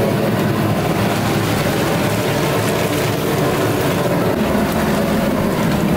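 Steady rushing noise of gas stove burners running under large cooking pots.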